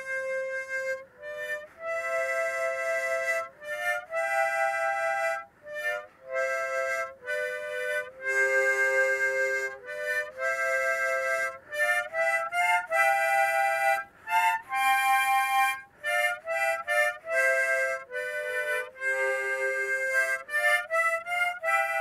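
Harmonica playing a slow melody of held single notes and chords, phrase after phrase with short breaks in between.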